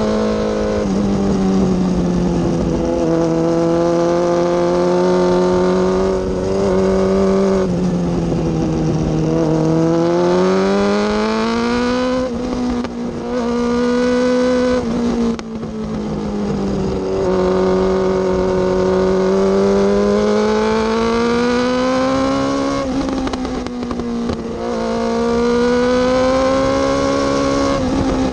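Motorcycle engine running under way, its pitch rising and falling as the throttle opens and closes through bends, with a sudden drop in pitch about three seconds in. Wind noise rushes over it.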